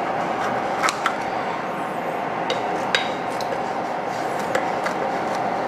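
Kitchen scissors cutting through a thick pan-fried flatbread pancake on a plate, with a few sharp clicks and clinks from the blades and plate, over a steady hum.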